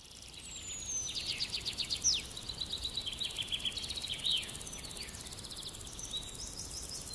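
Woodland birds singing: several overlapping songs of rapid trilled notes and short down-slurred whistles, swelling in over the first second or so, over a faint steady hiss.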